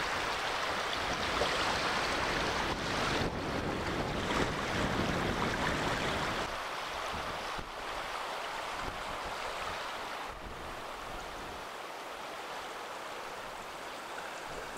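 Steady rush of wind and small waves washing over shallow water. In the first half it is louder, with a low rumble of wind on the microphone, and about halfway through it drops to a quieter, even hiss.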